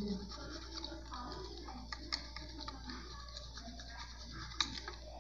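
Small knife slicing lemon peel on a glass cutting board, the blade giving faint scattered clicks against the glass, two of them clearer, about two seconds in and near the end. It is trimming the white pith off a strip of lemon zest.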